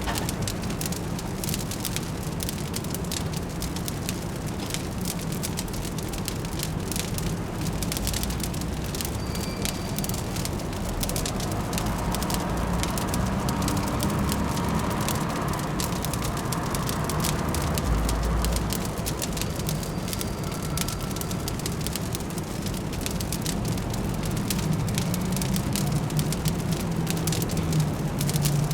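Fireplace crackling with dense, irregular small pops over a steady low city rumble.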